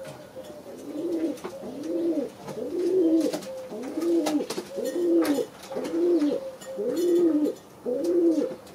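Pouter pigeon cooing, one low coo phrase repeated about once a second, eight or nine times.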